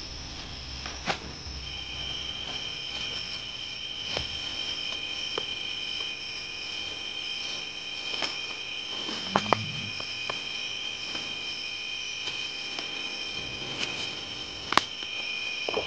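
A steady chorus of crickets trilling, with a second trill joining about two seconds in. Scattered short clicks and ticks sound over it, the sharpest a close pair near the middle and one near the end.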